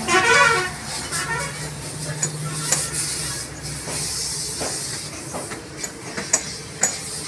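Steady hiss of a high-pressure water jet washing a heavy truck, with a low hum for a couple of seconds near the start and a few sharp knocks.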